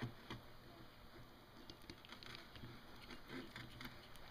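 Faint handling sounds: soft ticks and squishes of fingers working over the greasy tapered roller bearing of a wheel hub assembly, over a low steady hum.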